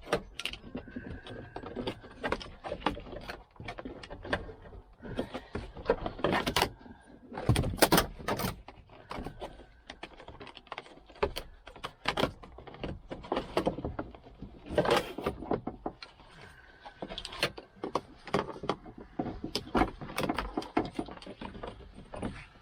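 Irregular metallic clinks, rattles and knocks of hand tools and metal fittings being worked on while a seat belt is unbolted, with a few louder knocks among them.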